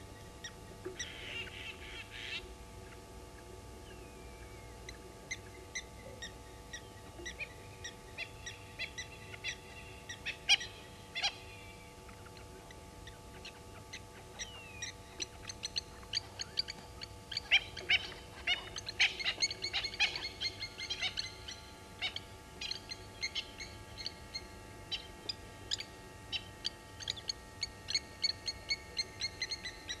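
Blacksmith lapwings calling in alarm: sharp, metallic clinking notes repeated in quick runs, scattered at first and coming thick and fast in the second half, with other birds calling among them.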